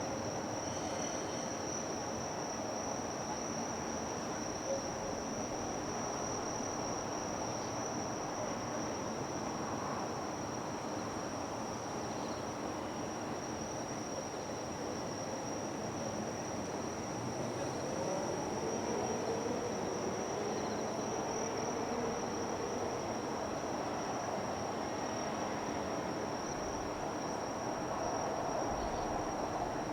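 Insects, cricket-like, giving a steady high-pitched trill without a break, over a constant background rumble that grows a little louder past the middle.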